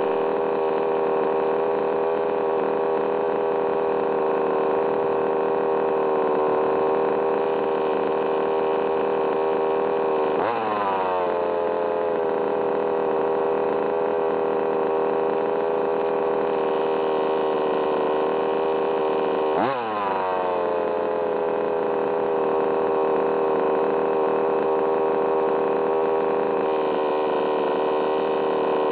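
HPI Baja 5B's small two-stroke petrol engine (CY) idling steadily, blipped twice with a quick rise and fall in revs, about ten and twenty seconds in. The owner finds the engine's noise strange.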